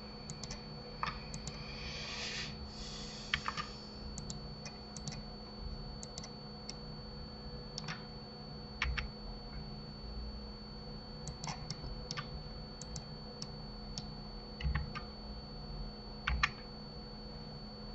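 Scattered clicks and taps of a computer keyboard and mouse, a few at a time, with a denser run of clicks about two to three seconds in. A faint steady electrical hum lies under them.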